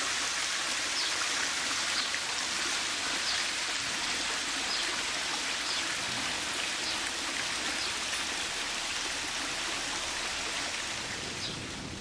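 Water from an artificial rock waterfall pouring down stone steps into a pool: a steady, even rush and splash.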